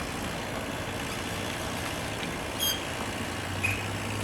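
Steady distant motor drone from the tree-trimming equipment, a low even hum, with two short high chirps partway through.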